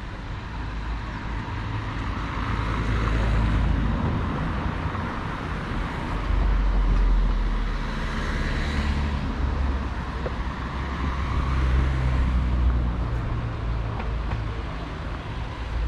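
Road traffic going past, a steady roar with a heavy low rumble that swells several times as vehicles pass.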